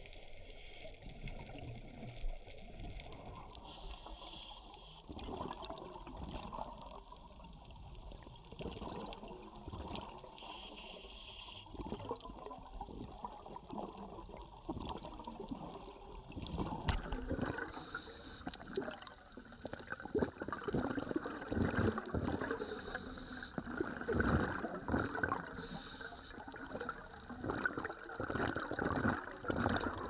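Muffled underwater water noise picked up by a camera submerged on a reef, full of irregular crackles and soft knocks. It becomes louder and busier about two-thirds of the way through.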